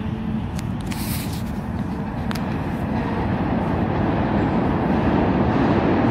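New York City subway train rolling into a station and slowing: a steady rumble of wheels on rail with a few sharp clicks, growing louder toward the end.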